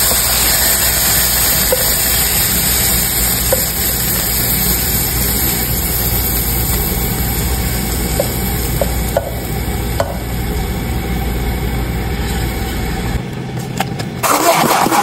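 A steady loud hum and hiss, with a few light knocks from a spatula scraping sautéed spinach from a frying pan into a plastic blender beaker. About a second before the end the hum stops and a Black+Decker stick blender starts running.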